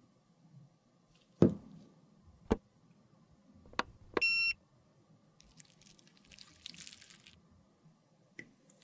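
Three sharp clicks, the first the loudest, then a short electronic beep from a UV sterilizer box as its button is pressed. A soft hissing rustle follows for a second or two.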